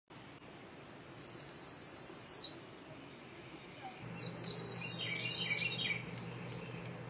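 An animal's high-pitched trill in two bursts of a second or two each, with fast rapid pulses, over a faint low hum that comes in about four seconds in.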